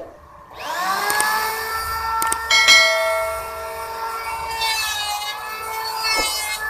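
KYUHO K282 electric hand planer, mounted upside down as a jointer, switched on: its motor spins up over the first second to a steady high whine, then its cutter shaves a board pushed along the fence, with a couple of sharp knocks and the whine wavering as the wood passes.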